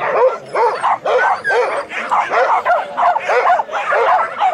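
A dog barking non-stop in a rapid string, about three barks a second.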